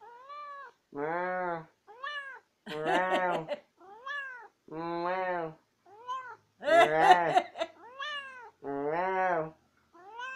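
Domestic cat meowing over and over in a chattering back-and-forth, about ten calls with short pauses between them. Short arching meows alternate with longer, lower, level calls.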